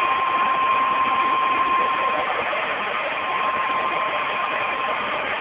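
Electric blower running steadily as it fans a grill fire: a continuous rush of air with a steady motor whine that dips briefly about two seconds in.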